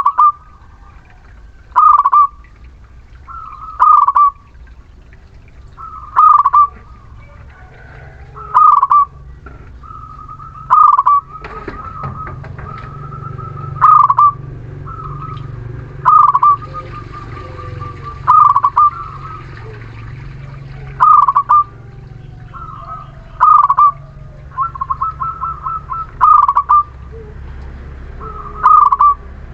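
A local Muria zebra dove (perkutut) in full song, cooing over and over with a loud call about every two seconds. Some calls are led in by a quick run of short notes. A steady low hum runs underneath.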